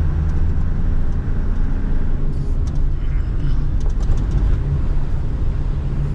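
Toyota Land Cruiser driving, a steady low engine and road rumble heard from inside the cabin. A few brief rattles or clicks come in the middle.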